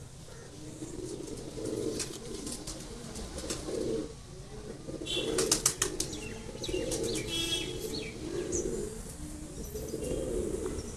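Pigeons cooing over and over in low murmuring calls, with a brief flurry of quick wing flaps about five seconds in.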